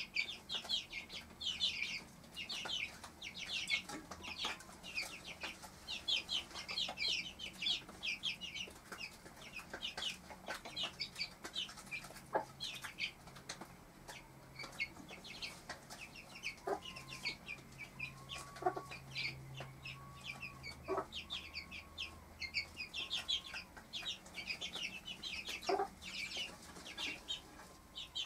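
Four-week-old Cuckoo Marans chicks cheeping without a break in quick, short high notes, with the mother hen's lower clucks now and then.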